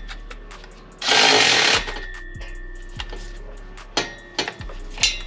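Metal knocks and clinks from fitting a catback exhaust, with one loud, rattling burst of noise lasting under a second about a second in.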